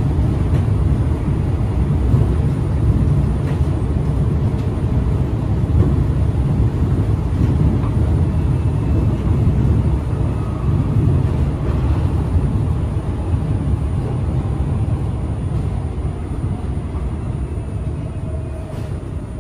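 Running noise of a Linimo 100-series HSST maglev car cruising between stations: a steady low rumble, easing slightly near the end.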